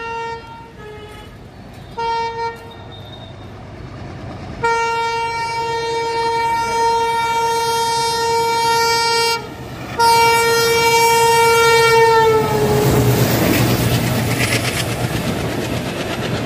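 An express train's diesel locomotive sounds its horn as it approaches: a few short toots, then a long blast broken once, with the pitch dropping as the engine passes. Then come the loud roar and wheel clatter of LHB passenger coaches rushing by at speed.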